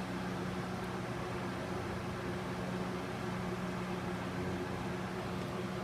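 Steady low background hum with a faint hiss, like a fan or other running appliance in the room.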